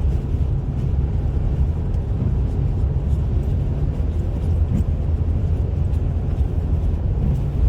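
Steady low rumble of a car driving, heard from inside the cabin: tyre and road noise on a slushy, snow-covered road under the engine's drone.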